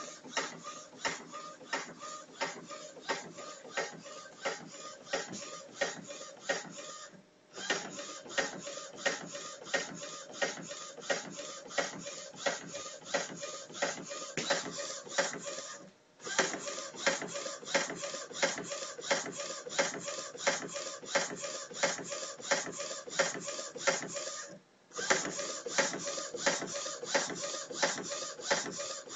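Modified Epson WorkForce 30 inkjet printing onto a wooden board: the print head carriage shuttles back and forth in quick passes, a steady whirring and clicking with a louder knock about twice a second. It pauses briefly three times.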